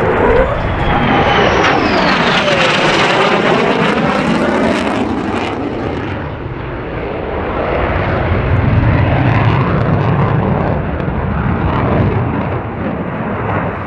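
An F-35A Lightning II's Pratt & Whitney F135 turbofan roars loudly as the jet passes, its pitch sweeping down. The high hiss drops away about five and a half seconds in, leaving a lower rumble that swells again later.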